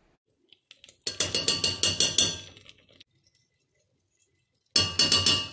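Metal spoon clinking and scraping rapidly against a stainless steel pot while coconut oil is added, in two quick runs of clinks with a light metallic ring: one about a second in, another near the end.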